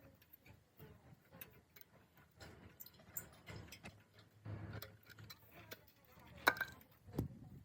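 Irregular faint clicks and taps, with a sharper knock near the end.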